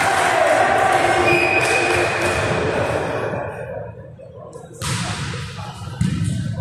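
Voices echoing in a large sports hall, dying down. Then, near the end, a volleyball is struck by hand twice, sharp hits that ring in the hall.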